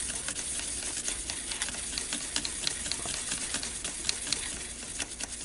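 Toothbrush bristles scrubbing a small printed circuit board: a rapid, continuous scratchy brushing, cleaning off battery-leak residue that is suspected of shorting a junction on the board.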